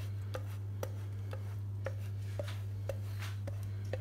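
Cheese being grated on a metal box grater: regular strokes about twice a second, each giving a light click and a short scrape, over a steady low electrical hum.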